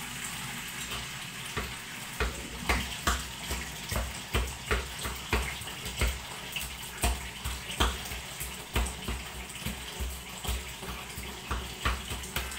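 Covered pot boiling on a gas stove: steady bubbling with irregular pops, about two a second.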